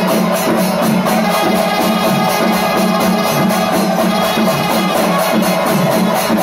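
Pandi melam, a Kerala temple percussion ensemble of chenda drums with ilathalam cymbals, playing loud and continuous in a fast, even rhythm.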